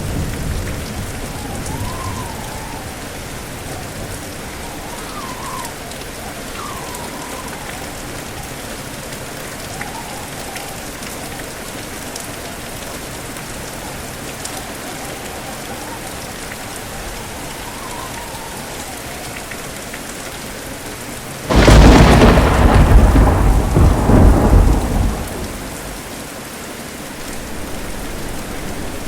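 Steady heavy rain with strong wind howling in faint wavering tones, then, a little over twenty seconds in, a sudden loud thunderclap that rumbles on for about three seconds.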